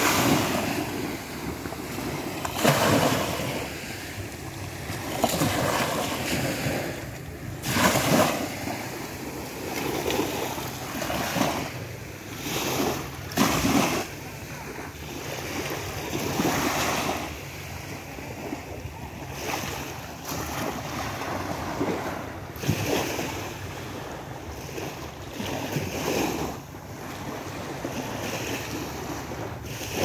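Small sea waves breaking and washing up a sandy shore, each wash swelling and ebbing every two to three seconds.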